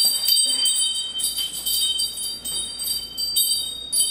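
Small metal wind chime jingling, its high tones struck again and again and ringing on.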